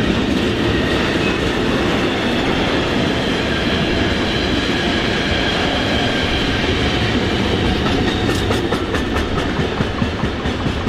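Freight train of tank wagons rolling past: a steady rumble and hiss of steel wheels on rail. From about eight seconds in, a quick run of wheel clicks stands out as the last wagons go by.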